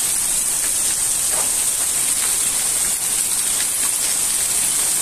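Heavy rain pouring down: a steady, loud hiss of the downpour, with water splashing onto the wet floor.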